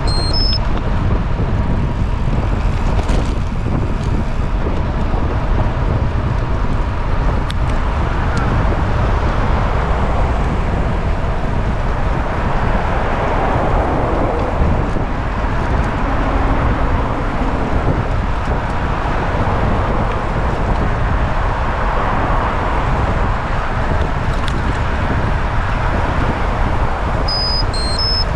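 Steady rumble of wind and road noise from travelling along a road, with short high beeps right at the start and again near the end.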